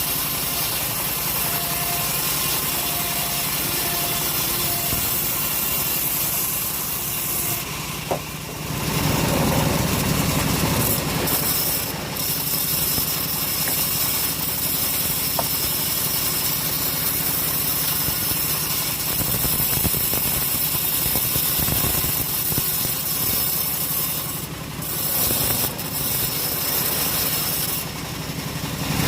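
Portable engine-driven sawmill saw cutting through a teak log: the engine runs steadily under load while the blade hisses through the wood, with a few brief changes in the sound along the way.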